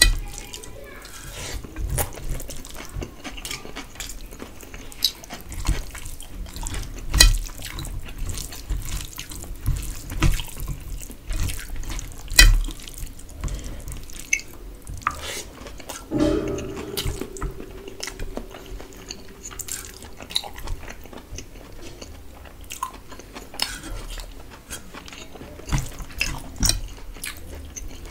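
Close-miked wet eating sounds: fingers squelching through rice and duck curry, with irregular sticky clicks and smacks of chewing. A short low hum comes partway through.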